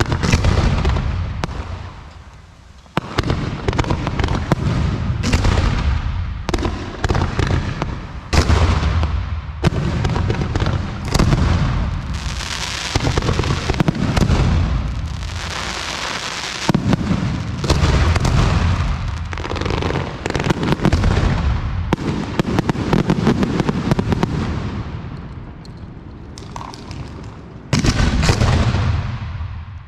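Aerial fireworks display: shell bursts going off one after another in quick succession, each a sudden bang that dies away, thickening into a dense run of overlapping bursts around the middle, with another loud burst near the end.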